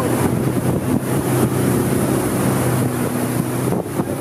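Wake boat's inboard engine running at a steady cruising speed, its throttle held constant, with wind buffeting the microphone.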